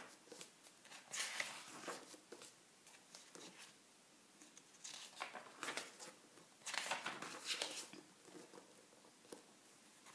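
Paper pages of a large book being turned by hand, rustling in several short bursts: about a second in, around five seconds and again around seven seconds.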